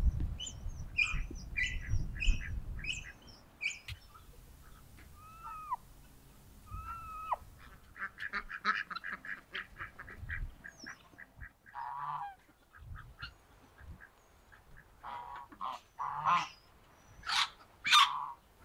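Farmyard poultry calling: scattered short calls, a rapid run of calls about halfway through, and two loud calls near the end.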